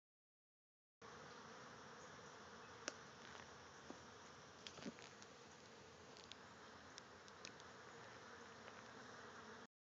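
Faint steady buzzing drone of flies swarming over a rotting dead carp, with a few light ticks in the middle. It cuts in after about a second of dead silence and drops out just before the end.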